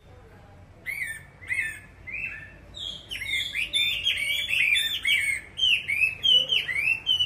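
Chinese hwamei singing: a fast run of whistled notes sliding up and down, starting about a second in and coming thick and fast from about three seconds on.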